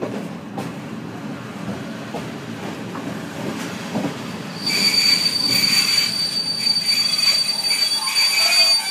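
Passenger train rolling slowly on the rails with a low rumble. About halfway in its brakes set up a loud, steady high-pitched squeal as it slows to a stop, and the squeal cuts off near the end.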